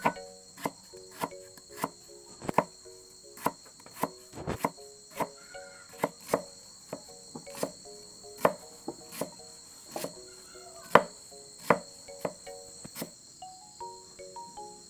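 Cleaver chopping lemongrass and herbs on a thick wooden chopping block: sharp knocks about two a second, the loudest about eleven seconds in, stopping about two seconds before the end.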